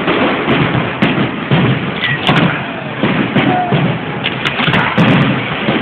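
Fireworks display: aerial shells bursting one after another in a continuous barrage of bangs.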